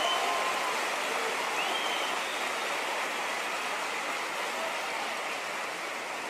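Large audience applauding, a steady sound of many hands clapping that slowly dies down.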